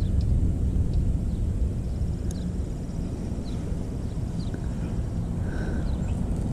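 Steady low outdoor rumble with a few faint, short high chirps scattered through it.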